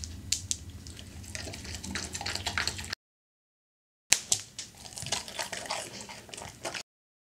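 A dog licking and eating crumbs off a hard floor, with wet smacking and clicking mouth sounds. There are two stretches, the second starting with a sharp click, and they are cut apart by a few seconds of dead silence.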